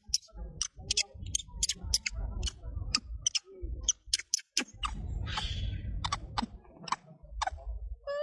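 Sharp clicks at an uneven pace, about three or four a second, over a low rumble, with a short pitched note near the end.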